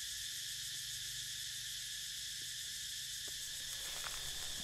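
Steady outdoor insect chorus droning at a high pitch, over a faint low hum, with a few faint ticks late on.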